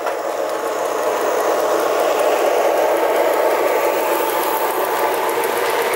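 Lionel LionChief GE ET44 Tier 4 O-gauge diesel locomotive and its intermodal well cars running past on FasterTrack: a steady rolling rattle of the wheels on the track, mixed with the locomotive's diesel engine sound from its onboard speaker. It grows a little louder as the train draws near.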